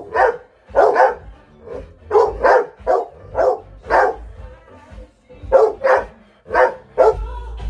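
A dog barking along to music: about a dozen short barks, often in quick pairs, with a brief pause about halfway through.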